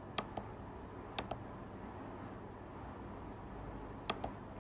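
Computer mouse clicking three times, each a quick double click, over faint steady room hiss.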